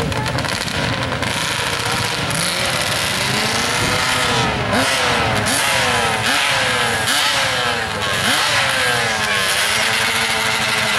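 Yamaha Raptor and Yamaha Banshee drag quads' engines running and being revved repeatedly while staged at the starting line, the pitch rising and dropping back about once a second.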